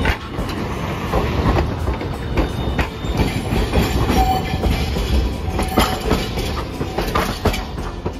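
Hiroden streetcars, a 700-series car and a Green Mover LEX, rolling past close by over a junction of crossing tracks, with a low rumble and repeated wheel clacks as the wheels run over the rail joints and crossings.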